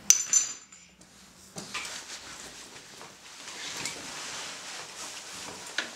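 A sharp clink with a brief high ring at the start, then soft rustling of a coat and scarf being pulled on, with a sharp click near the end.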